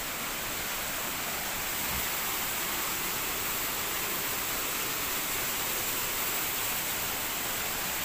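Steady rush of a waterfall and its stream: an even, unbroken wash of water noise.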